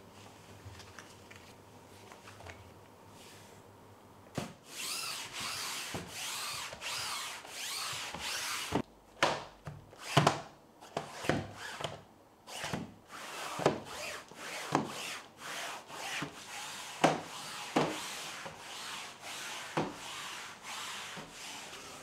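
A flooring wiper's cloth pad rubbed over a wall and ceiling. After a few quiet seconds there is a long continuous scrubbing rub, then a run of short back-and-forth wiping strokes, roughly one a second, with sharp knocks.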